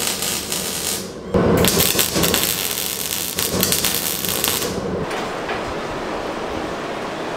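Electric arc welding on steel: the arc's crackling hiss runs for about a second, breaks off briefly, then strikes again and runs for about three and a half seconds before stopping.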